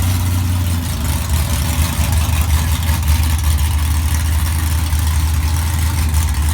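2017 Chevrolet COPO Camaro drag car's V8 engine idling steadily with a deep, low drone.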